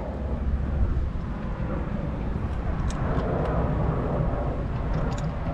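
Steady low outdoor rumble by the sea, with a few faint clicks.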